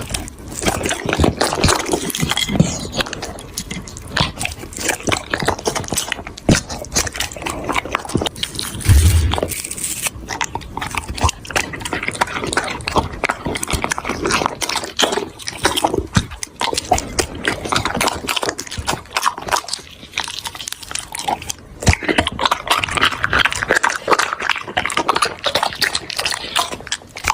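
A dog eating noisily: irregular wet smacking, slurping and chewing clicks. A single low bump comes about nine seconds in.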